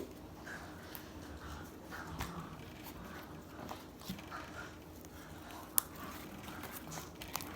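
Homemade glue slime being stretched and squished by hand, with faint sticky smacks and a few small clicking pops.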